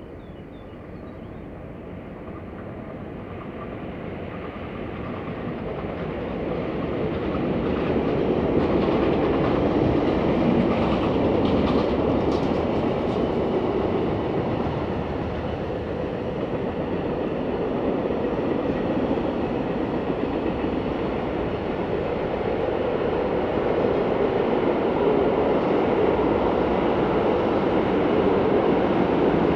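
A train approaching and rolling past on the rails. The rumble and wheel noise build up over the first several seconds, then go on steadily with some clickety-clack.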